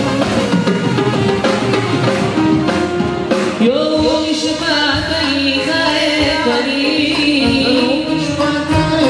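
Live Moroccan piyyut with an Andalusian-style band of violin, drum kit and darbuka playing. About three and a half seconds in, a male singer comes in with a long, ornamented vocal line over the band.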